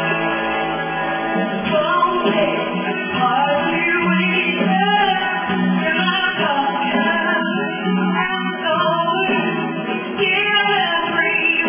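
Woman singing into a handheld microphone over backing music with guitar.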